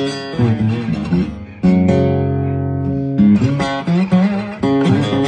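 Cedar-top Seagull Performer acoustic guitar played unplugged. Single picked notes, some of them bent, lead to a chord struck about two seconds in and left ringing for about a second and a half, then the picking resumes.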